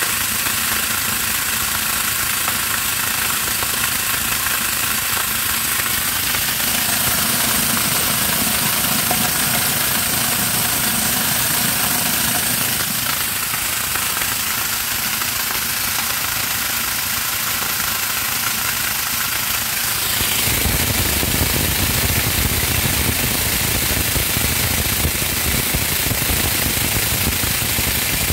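Homemade electric corn grinder running steadily while it grinds dried corn kernels into grits, with a dense, rapid rattle over the motor's noise. From about two-thirds of the way through, the sound becomes deeper and slightly louder.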